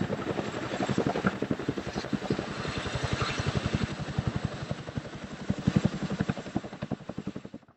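Helicopter rotor heard from on board: a rapid, even chop of blade beats over engine noise, fading down near the end.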